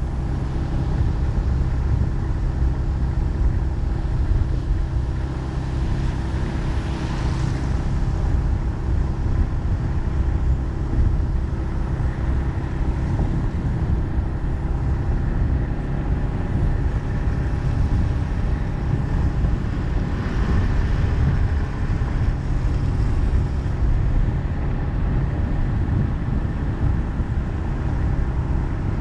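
Vehicle driving along a road, heard from on board: a steady low rumble of engine and tyres with a faint steady engine hum, and a brief rise in hiss about seven seconds in.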